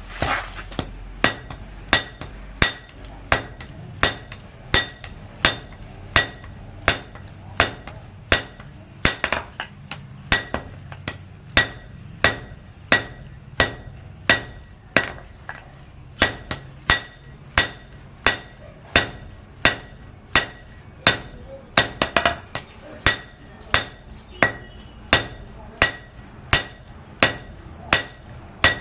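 Blacksmith's hand hammer striking iron on an anvil in a steady rhythm of about one and a half blows a second, each blow ringing, with a quick cluster of blows a little past the middle.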